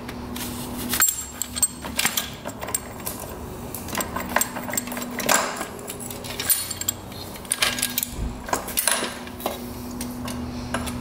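Hand tools and metal engine parts clinking and knocking in irregular sharp taps during the teardown of a two-stroke dirt bike's top end, over a faint steady hum.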